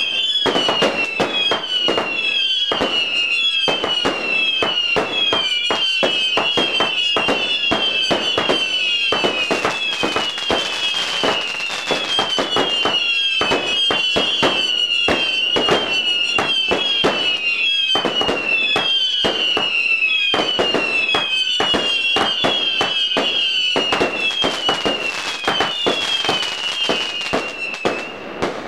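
Brothers 'Thunder King' multi-shot firework firing continuously: a dense run of short falling whistles, several a second and overlapping, mixed with sharp bangs and crackling bursts, dying away near the end.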